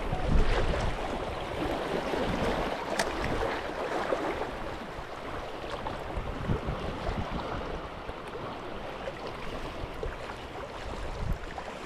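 Shoreline water washing and lapping, with some wind rumble on the microphone near the start and one sharp click about three seconds in.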